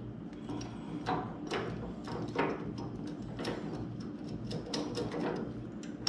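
Light, scattered clicks and taps of a small metal clutch-switch mounting plate being handled and fitted by hand up into a car's pedal box.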